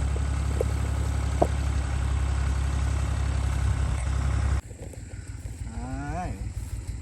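Farm tractor engine running while turning up a potato patch. A heavy low rumble over the first four and a half seconds cuts off abruptly, leaving the engine running more quietly with an even low pulse. A brief rising-and-falling voice-like sound comes about six seconds in.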